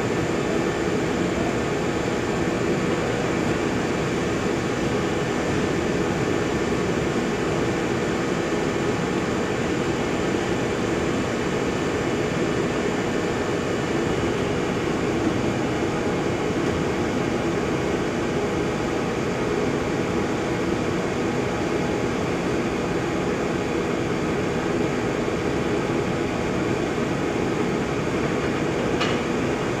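Steady running noise of a film-converting machine feeding HDPE plastic film over its rollers: a constant mechanical hum with several steady tones.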